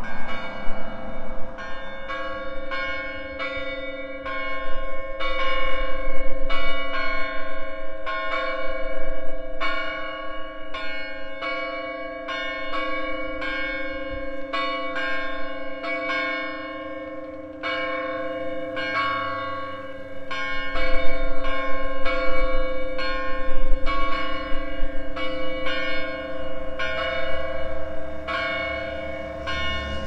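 Church bells ringing, with strikes about two a second over a lingering hum.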